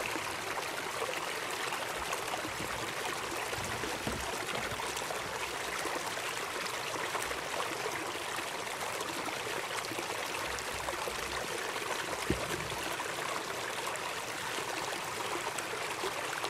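A small creek rushing steadily over rocks in a shallow riffle, an even splashing rush of water, with one brief low thump about twelve seconds in.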